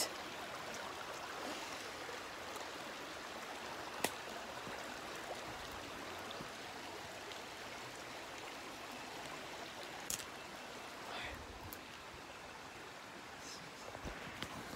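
Steady rush of running water from a stream. There is a sharp click about four seconds in and a couple of fainter ones later.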